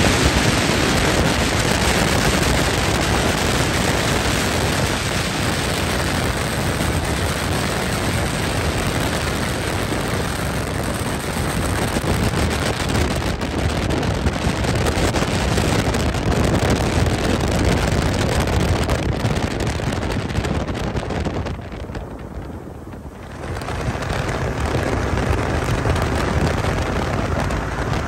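Wind buffeting hard on the microphone in an open-cockpit ultralight in flight, with the aircraft's engine running underneath. The noise drops off briefly a little after twenty seconds in, then returns.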